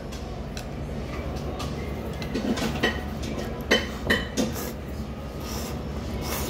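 Ramen noodles being slurped in several short, sharp slurps between about two and four and a half seconds in, with a hissy slurp near the end, over a steady low background hum.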